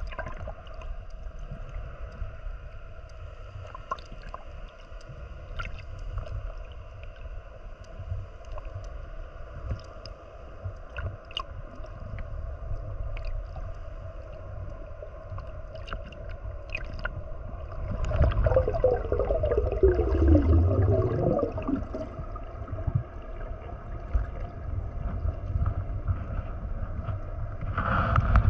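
Muffled underwater sound: a low water rumble with a steady faint hum and thin whine, and scattered faint clicks. About 18 seconds in it swells louder for a few seconds, with a falling whine.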